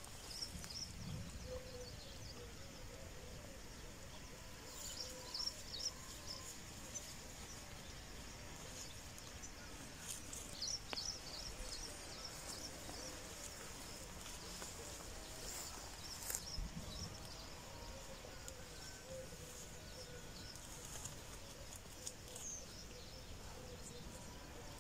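Quiet outdoor ambience with small birds chirping in short bursts now and then. There are occasional soft snaps and rustles from fallow deer tearing at grass and leaves as they graze.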